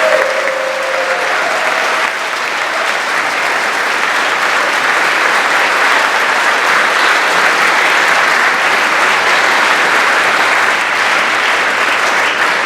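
A large audience applauding steadily: dense, continuous clapping.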